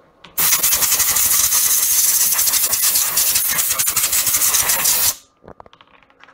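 Compressed air blasting chips and dust out of freshly CNC-routed lettering: a loud, steady hiss that starts about half a second in and cuts off sharply about five seconds in.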